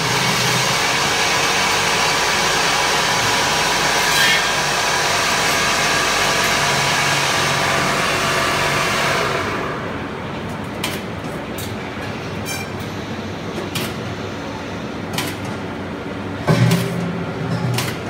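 Steady rushing machine noise, which stops about nine or ten seconds in. After that come scattered clinks and knocks of thin stainless steel bucket bodies being handled, with a louder clatter near the end.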